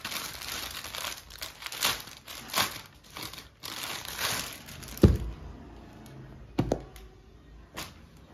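Clear plastic packing bag crinkling and rustling as a folded cotton suit is handled and pulled about inside it, for about four and a half seconds. About five seconds in comes a dull thump, the loudest sound, followed by two lighter knocks.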